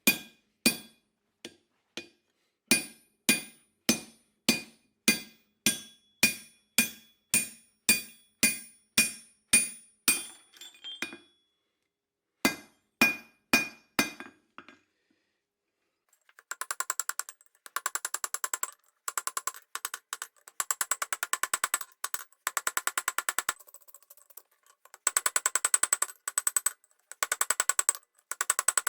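Hand hammer striking hot steel on an anvil, a ringing blow about every half second, stopping about halfway through. After a short silence comes a fast run of rapid ringing clicks in bursts.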